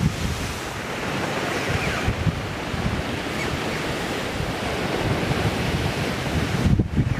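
Surf breaking and washing up a pebble beach, a steady rush of water, with wind buffeting the microphone in low rumbles that are strongest near the end.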